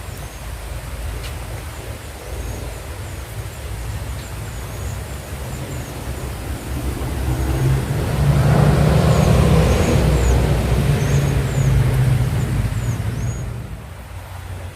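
A motor vehicle passing by. Its low engine hum swells from about seven seconds in, is loudest for a few seconds, and fades away near the end. Short high chirps repeat throughout.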